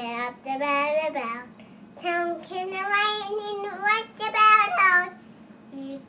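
A toddler girl singing alone, with no accompaniment, in short phrases with held notes and a brief pause about a second and a half in.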